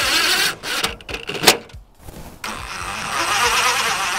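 Cordless power driver running screws in: a short burst at the start and a longer run of about two seconds near the end, with a sharp click between them.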